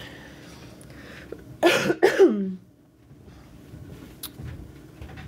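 A woman coughs twice in quick succession about a second and a half in, the second cough trailing off with her voice falling in pitch.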